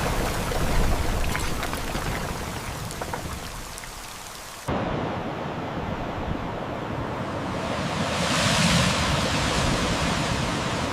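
Heavy rain with a low rumble, fading, then cut off abruptly about four and a half seconds in and replaced by a steady rushing noise that swells near the end.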